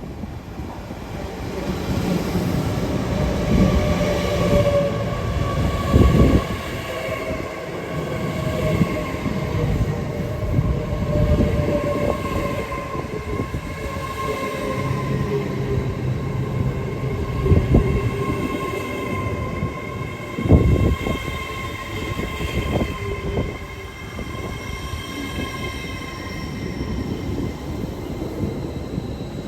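A train running through the station, with a steady whine in several tones that slowly falls in pitch and a few sharp clunks, loudest about six seconds in and again around eighteen and twenty-one seconds.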